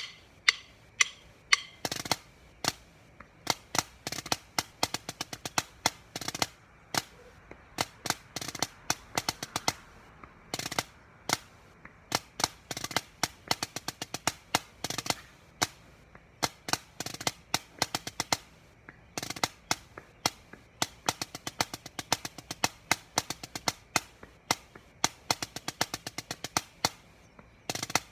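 Drumsticks on a drum practice pad playing a marching-band snare drum cadence: fast runs of stick strokes and accented single hits, in phrases broken by short pauses.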